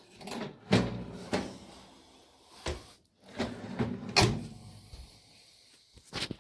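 Handling knocks and clunks, about five sharp ones with rustling in between, as a countertop air fryer oven's door is worked.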